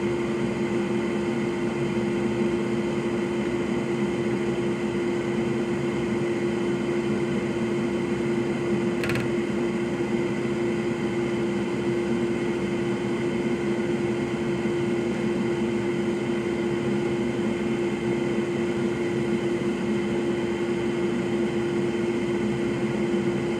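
Electric blower fan on a repair bench running steadily, a constant drone with a mid-pitched hum. A faint click about nine seconds in.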